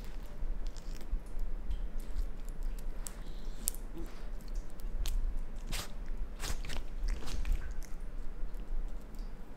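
Raccoon chewing and biting into a bug held in its paws: irregular sharp clicks of eating, thickest in the middle stretch.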